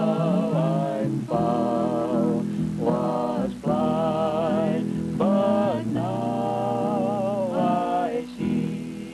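Soundtrack song: a singer holding long, wavering notes in phrases of about a second each, with short breaks between them, over a steady low instrumental accompaniment.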